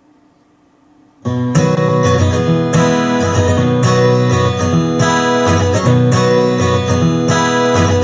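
Strummed acoustic guitar music played through an Audio Pro C10 wireless speaker. It starts about a second in, after a short near-silent gap.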